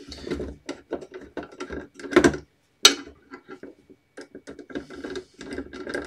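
Hands handling the plastic back cover and stand of an Acer all-in-one PC: irregular clicking and scraping of plastic parts, with one sharp click about three seconds in.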